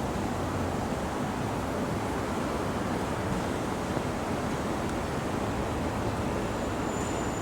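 Steady rushing noise, like wind or distant ambient roar, with no distinct events; a faint, brief high tone near the end.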